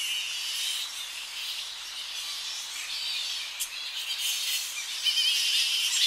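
Colony of Tonga flying foxes (Pacific flying foxes, Pteropus tonganus) calling at close to medium range: a dense chatter of high squeals and squabbling calls that grows a little louder about five seconds in.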